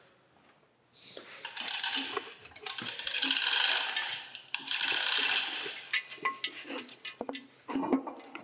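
Metal scraping and clinking as the cast-iron tailstock body of a Monarch 612 lathe, its quill just pressed out, is shifted and turned on the steel plates of a hydraulic shop press. It starts about a second in as a dense rattling scrape, then breaks into scattered clinks near the end.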